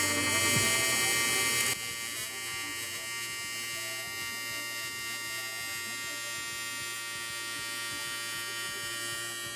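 TIG welding arc buzzing steadily as filler rod is fed into the seam of a metal box. The arc is louder and hissier for the first couple of seconds, then settles to a slightly quieter, even buzz.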